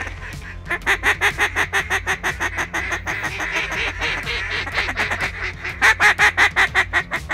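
A duck call blown in a long run of quick, loud quacks, about four a second, easing off in the middle and coming back loudest near the end.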